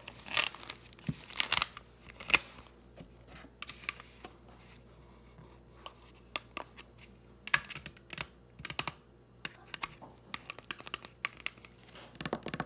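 Thin clear plastic film wrapper being peeled and torn off a plastic mochi ice cream tray, crinkling in irregular bursts. It is loudest and busiest in the first couple of seconds, then comes in shorter crackles.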